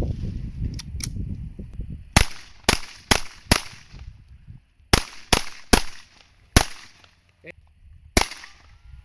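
CZ P-07 pistol firing .22 LR rounds: about nine sharp shots in quick groups, four in about a second and a half, then three, then two single shots.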